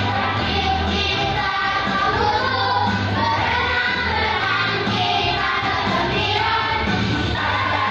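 A group of young children singing together as a choir into microphones, over instrumental accompaniment with low sustained bass notes.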